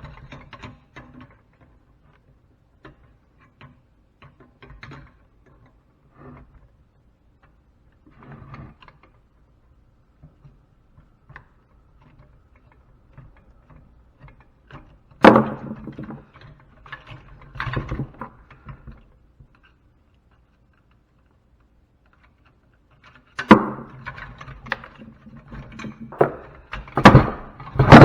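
Hand tools clicking, scraping and knocking on metal parts as a piece of scrapped equipment is taken apart, with scattered small clicks throughout. There is a louder knock about halfway through, another a couple of seconds later, and a run of louder knocks over the last few seconds.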